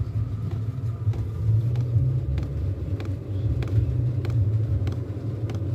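Portable diesel air heater running: a steady low combustion rumble and fan whine, with light ticks about twice a second like its fuel dosing pump.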